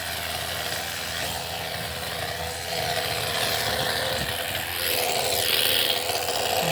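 Impact hammer drill boring into concrete, running steadily and getting louder about halfway through.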